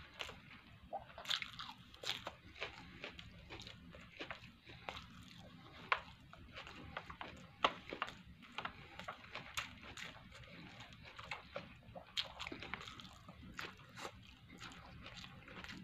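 A person chewing and smacking a mouthful of food, with many short irregular wet clicks from the mouth. Near the end he sucks in a mouthful of noodles.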